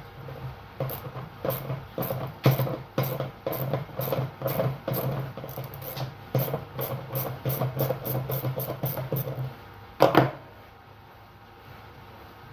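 Ratchet wrench clicking in quick repeated strokes, about two or three a second, as a bolt is undone on a washing machine's drum and bearing assembly, with one louder metal knock about ten seconds in.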